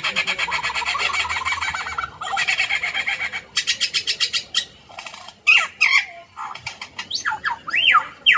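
Male superb lyrebird singing in display, a medley of mimicked sounds. It opens with a very fast rattling chatter, then runs into rapid clicks, and over the last few seconds gives sharp sweeping whistles that swoop down and up like laser-gun "pew pew" noises.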